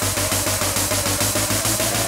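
Background music with a fast, steady beat.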